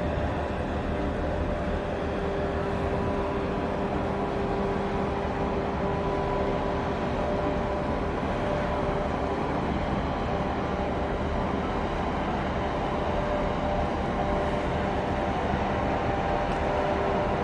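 A large container ship's engine and onboard machinery drone steadily as it passes close by: an even hum of several held tones over a low rumble.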